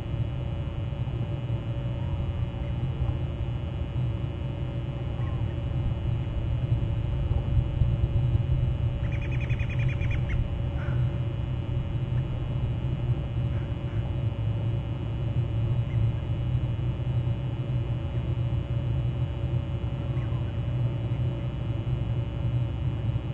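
Steady low rumble with a faint steady hum. One short, high bird call, lasting about a second and a half, comes about nine seconds in.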